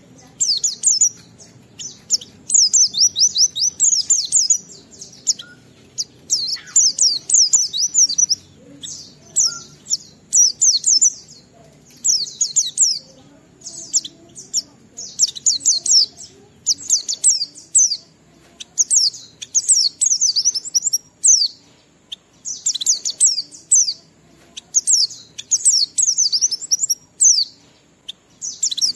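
White-eye (pleci) singing in full voice: phrase after phrase of rapid, high twittering notes, each phrase a second or two long, with short breaks between.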